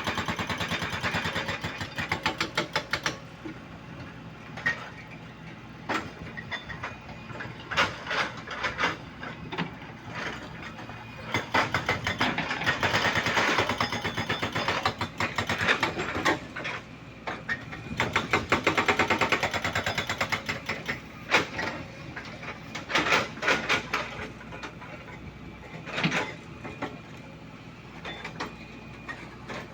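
JCB backhoe loader's diesel engine running under work, with repeated metallic clanks and several longer bursts of scraping from the digging.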